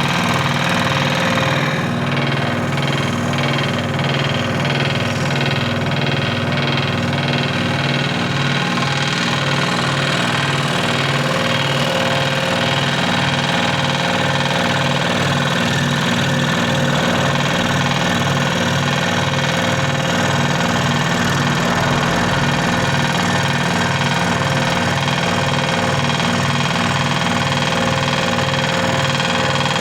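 Scroll saw running steadily, with an even, fast pulsing from its reciprocating blade drive.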